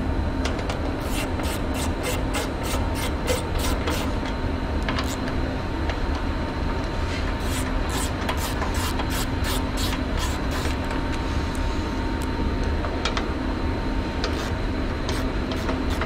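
Socket ratchet clicking in runs of quick clicks, about four a second, as 10 mm bolts on a snow blower engine's cover are turned out with a socket on an extension. A steady low hum runs underneath.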